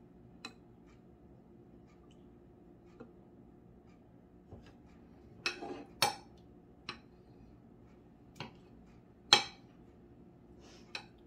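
A spoon clinking against dishes in a scattering of sharp, separate clinks, loudest about six and nine seconds in.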